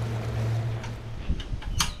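Boat underway: a steady outboard engine hum with water rushing along the hull, which cuts off a little over a second in. A sharp click follows near the end.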